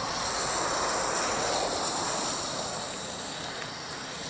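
Narrow-gauge steam locomotive moving off with a steady hiss of steam, fading as it draws away.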